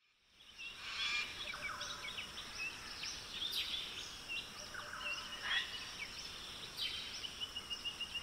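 Forest ambience of wild birds calling and chirping, many short quick notes sliding up and down, starting about half a second in, with a rapid run of repeated chirps near the end.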